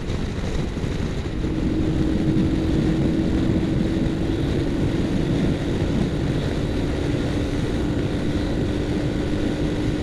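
Royal Enfield Himalayan single-cylinder motorcycle cruising at highway speed: steady engine drone under heavy wind rush on the microphone. A steady hum joins about a second in.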